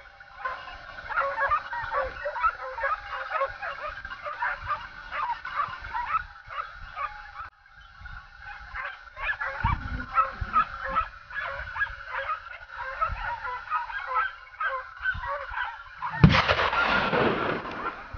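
A pack of hunting dogs on a wild boar hunt, yelping and baying in many short overlapping calls. About sixteen seconds in, a sudden loud burst of noise cuts in and fades away over a second or two.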